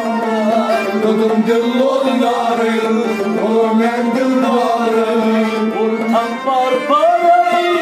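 Harmonium music: a melody moving up and down over a steady held drone note.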